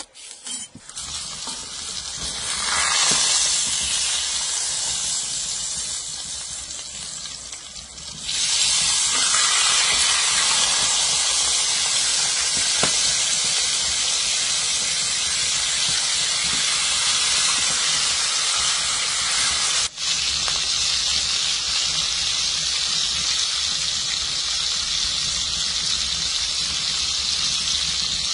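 Steaks searing in a cast-iron skillet, a steady sizzle that grows louder about eight seconds in.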